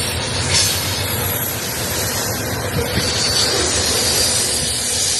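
Long Canadian Pacific freight train rolling past close by: a steady loud noise of steel wheels on the rails and passing wagons, with a short knock about half a second in.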